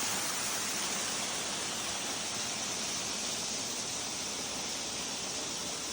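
Waterfall, about 12 metres high, rushing: a steady, even hiss of falling water.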